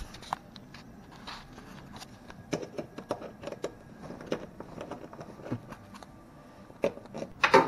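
Scattered light clicks, taps and scrapes of hands and small parts inside a bowling pinsetter as its pin sensors are unfastened and pulled out. A louder, voice-like burst comes near the end.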